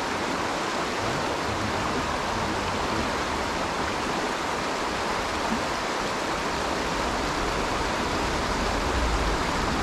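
Shallow mountain stream rushing over rocks and boulders: a steady, even water rush.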